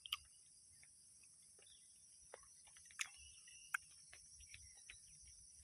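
Steady high-pitched drone of insects in chorus, with faint scattered chirps and three sharp clicks: one just after the start, one about three seconds in and one a little later.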